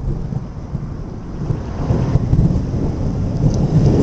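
Rolling thunder rumbling low, swelling again about two seconds in, with rain falling.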